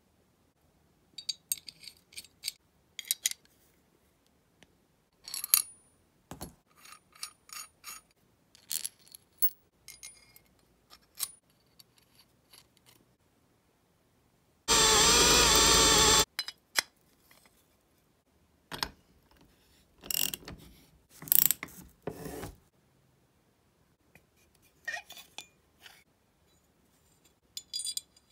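Small steel parts clicking and clinking as they are handled and fitted: a homemade rivet-nut setting tool, bolts, a rivet nut and a square steel tube. About halfway through, a loud, steady mechanical sound lasts about a second and a half.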